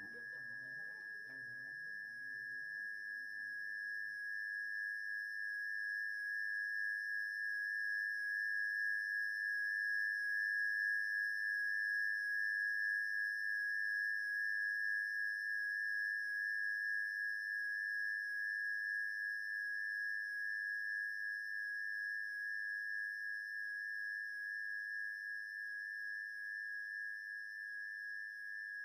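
A steady high-pitched electronic tone with fainter higher tones above it, swelling gradually and then easing off. A faint low rumble dies away in the first few seconds.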